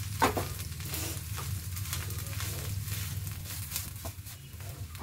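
Wooden spoon stirring and scraping mashed potato stuffing around a steel pan on the heat, with irregular scrapes over a light sizzle. A louder knock comes just after the start, and a steady low hum runs underneath.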